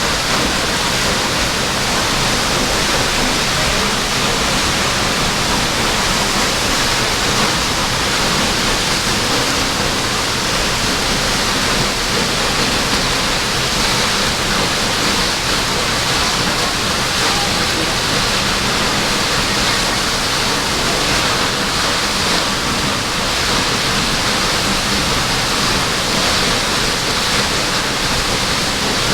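Waterfall pouring, a steady, loud rushing of falling water.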